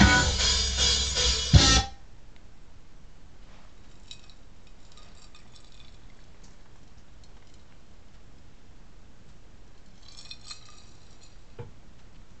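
Loud band music with electric guitar that cuts off abruptly about two seconds in, followed by low room noise with a few faint, indistinct sounds.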